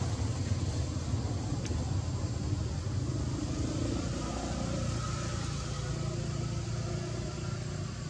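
A steady low motor rumble, with faint voices in the background.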